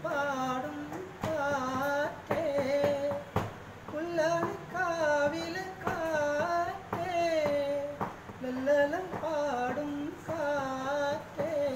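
A man singing unaccompanied: a slow melody in held notes that bend and waver in pitch, in phrases of about a second with short breaths between.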